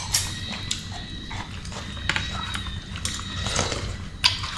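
Irregular light knocks and clicks, a few in all, over a faint steady high-pitched tone.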